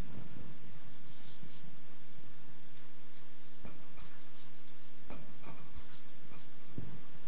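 Marker pen writing on lined paper: several short scratchy strokes, with a few soft knocks of the pen on the paper between them.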